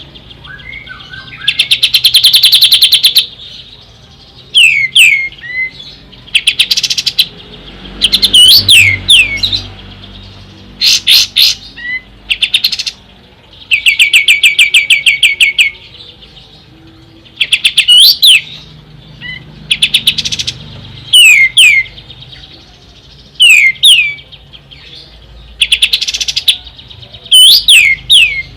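Kapas tembak (olive-winged bulbul) singing loudly in short phrases a second or two apart: rapid buzzy rattles of repeated notes alternate with sharp, quickly sweeping whistled notes.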